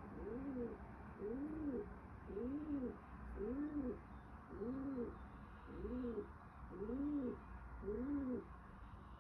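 A low cooing hoot repeated about once a second, eight times, each call rising and then falling in pitch. The uploader takes it for pigeons.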